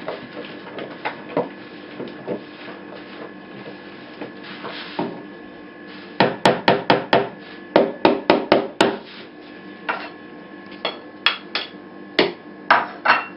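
Wooden spoon knocking against the sides of a plastic tub while stirring a chunky mixture: faint clicks at first, then two quick runs of about five knocks each in the middle, and a few more knocks near the end.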